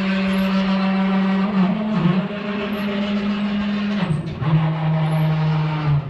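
ShopBot CNC machine's stepper motors whining as the gantry runs air-cut moves, a steady pitched hum that jumps to a new pitch with each change of move, several times.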